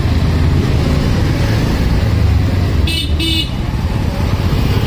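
Steady low rumble of a motorcycle ride through slow, crowded traffic, with two short vehicle-horn toots about three seconds in.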